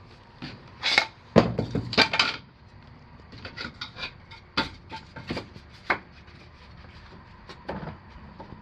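Irregular knocks and clatter of wood. The loudest cluster comes about one to two seconds in, followed by scattered lighter taps.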